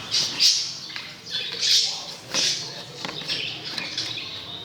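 A bird giving short, high squawking chirps, three or four calls with gaps between them.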